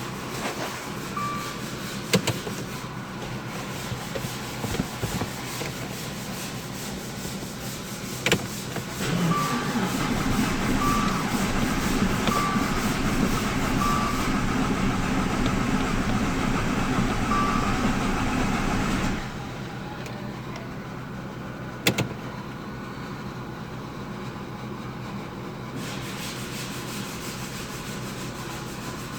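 A few knocks, then a car's MultiAir engine is heard for about ten seconds before stopping abruptly, while a short chime beeps several times. The rest is quieter workshop handling.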